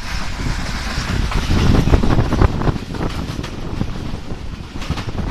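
Express passenger train's wheels running on the track, a steady rumble with clattering knocks that are heaviest about one and a half to two and a half seconds in, and wind buffeting the microphone.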